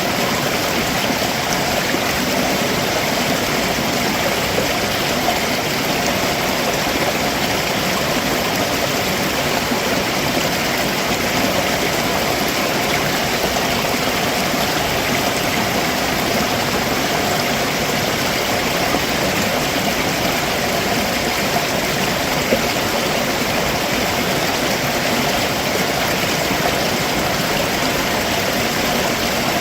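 Stream rushing and splashing steadily over rocks below a waterfall, a continuous even water noise.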